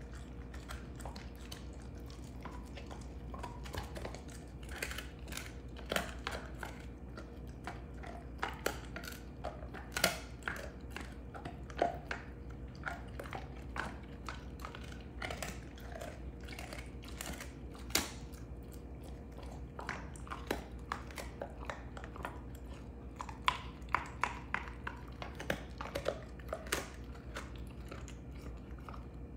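A Belgian Malinois chewing a beef rib bone: irregular sharp cracks and crunches as his teeth work the bone, coming in bunches with short pauses between.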